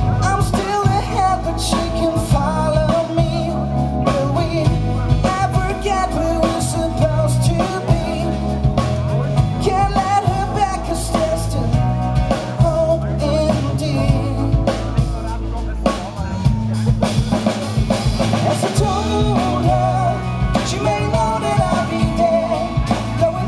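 A band playing live through a PA: acoustic guitar, electric bass, drum kit and keyboard, with a steady beat and a singing voice over them at times.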